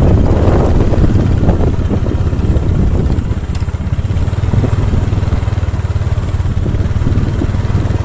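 Small motorcycle engine running steadily while riding along a bumpy dirt path.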